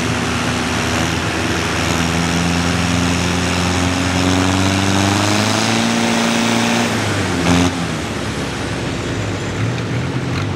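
Antique Farmall tractor engine working hard under heavy load while dragging a weight-transfer pulling sled. Its pitch sags as it lugs down, a sharp pop comes about seven and a half seconds in, and then the engine runs on lower and quieter as the pull ends.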